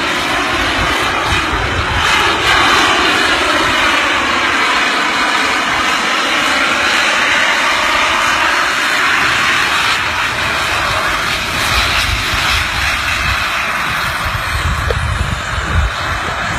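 Aircraft engine running loudly and steadily, its whine slowly sweeping in pitch.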